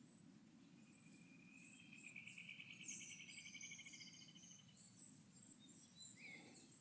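Faint countryside ambience: birds chirping high and briefly, with a rapid pulsed trill lasting about four seconds starting about a second in, over a faint steady low rumble.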